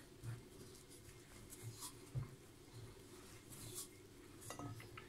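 Wooden spoon stirring a crumbly flour dough in a glass bowl: faint, irregular scraping and light tapping against the glass.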